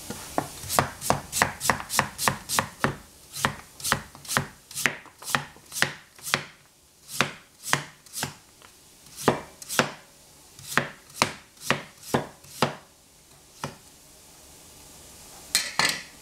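A wide-bladed knife slicing a raw potato into thin rounds on a plastic cutting board, each cut ending in a sharp knock of the blade on the board, about four a second at first and slowing to about two a second. The cutting stops a few seconds before the end, followed by a short cluster of louder knocks.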